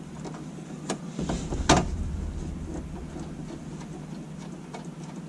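Faint handling noises of hands working on hardware at the base of a transfer case shifter: two sharp clicks, about a second in and just under two seconds in, and a few small ticks over a low steady hum.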